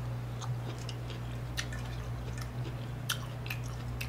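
Close-miked chewing of a mouthful of broccoli: soft mouth sounds broken by scattered sharp clicks and crunches, over a steady low hum.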